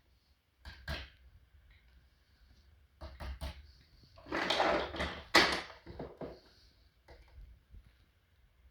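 A series of short knocks and clatters, like hard objects being handled and set down, densest and loudest about halfway through.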